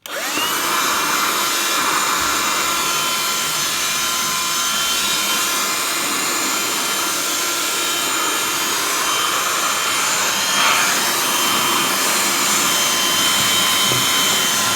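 BLACK+DECKER dustbuster QuickClean cordless handheld vacuum switched on, its motor spinning up within a fraction of a second to a steady high whine over the rush of air. A brief louder blip comes about ten and a half seconds in.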